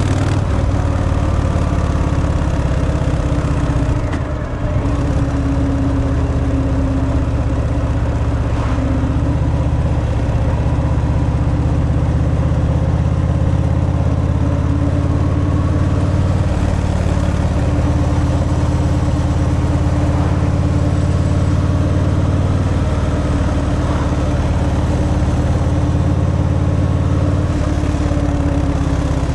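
Harley-Davidson Fat Boy's Milwaukee-Eight 114 V-twin running steadily through its stock exhaust while riding, with a brief dip in engine sound about four seconds in.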